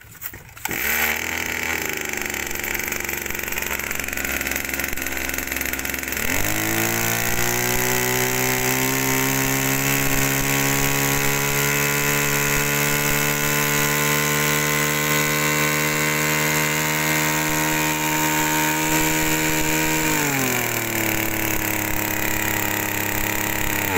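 The small engine of a Kawasaki backpack power sprayer is pull-started and catches at once. It idles for about five seconds, is revved up and held at a steady high speed while the pump drives water out through the spray lance, then drops back to idle and is shut off at the very end.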